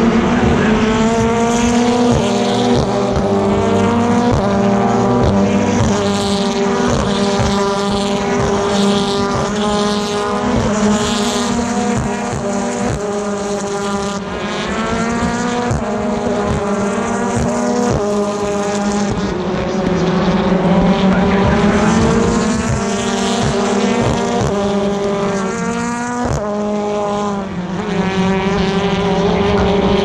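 A pack of BTCC touring cars, with turbocharged 2.0-litre four-cylinder engines, accelerating hard out of a hairpin. Several cars rev up through the gears at once, their pitch rising and dropping back at each upshift, one car after another.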